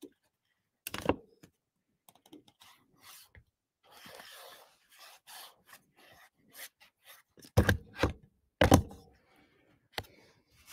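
Hands handling cardstock and a glue bottle on a craft table: scattered rubbing, rustling and light clicks, with two loud thumps close together about three quarters of the way through.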